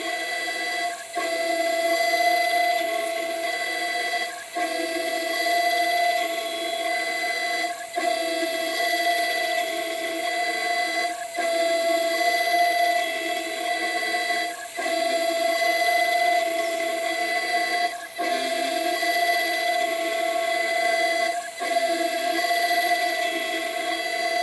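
CNC 6040 router's spindle whining steadily as an end mill cuts an aluminium plate, with a vacuum nozzle sucking up the chips at the cutter. The sound dips briefly about every three and a half seconds.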